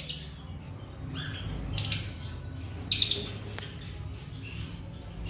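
Cockatiel chicks giving short, scratchy, high-pitched calls, loudest about two and three seconds in, typical of chicks begging to be fed formula. A steady low hum runs underneath.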